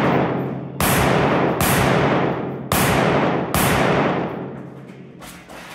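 Four rifle shots about a second apart, each with a long echoing tail under the roofed shooting bay. A few fainter knocks follow near the end as the firing stops.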